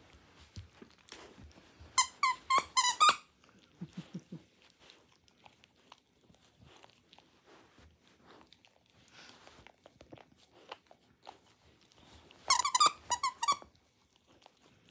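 Squeaker inside a plush dog toy squeaking in two quick runs of several squeaks as a dachshund bites down on it, about two seconds in and again near the end. In between come soft chewing and mouthing sounds on the plush fabric.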